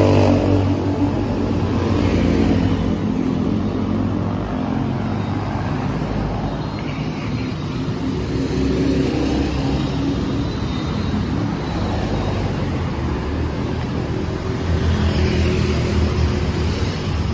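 Road traffic: motor vehicles passing on a city street, with engine noise louder near the start and again near the end.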